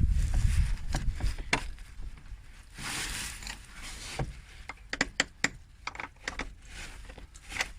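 Irregular clicks and short scrapes of hands handling tools and parts, coming thicker in the second half, with a low rumble of wind on the microphone in the first second.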